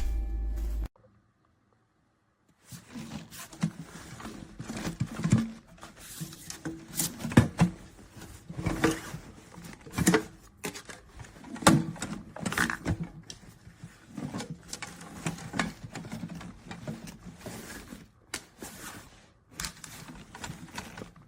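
Irregular clicks, knocks and rustles of objects being handled at close range, starting a couple of seconds in after a brief silence.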